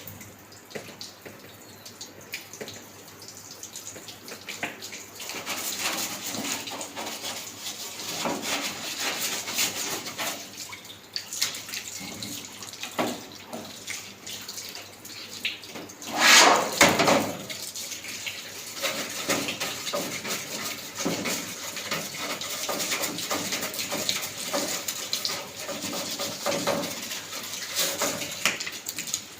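Water running and splashing, with small clatters throughout and a louder rush of water about halfway through.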